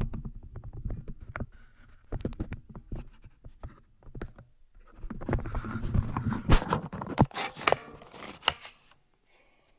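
Small clicks and taps with rustling and scraping, as small metal lock pins and a key are handled and arranged on a work surface. It is busiest in the second half and goes still about a second before the end.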